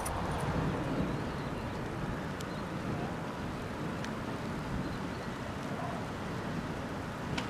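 Steady wind noise with a low rumble and a few faint clicks.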